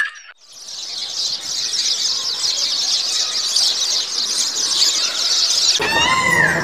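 Steady, dense high-pitched insect buzzing, like a cicada or cricket chorus. Near the end it stops and an animal call begins, its pitch arching up and down.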